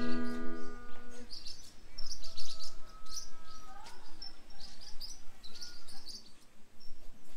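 The last strummed chord of an acoustic guitar rings out and fades over the first second or so, then birds chirp repeatedly in short high calls.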